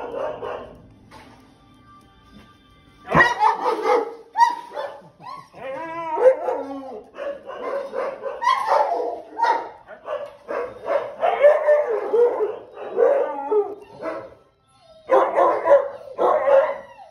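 Dogs in shelter kennels barking, with a wavering howl about six seconds in.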